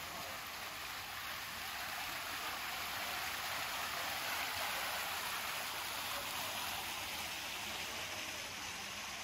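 Fountain jets splashing into their basin: a steady rushing hiss that swells in the middle and eases off near the end.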